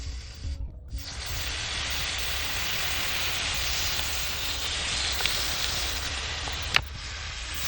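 Steady sizzling hiss of a red-hot steel drill bit meeting a block of ice, water flashing to steam. It starts about a second in, and a sharp click comes near the end.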